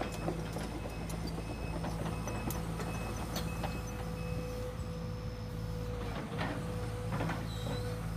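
Excavator working: its diesel engine runs steadily with a faint regular pulsing, and metal clanks come now and then, several close together about six to seven seconds in.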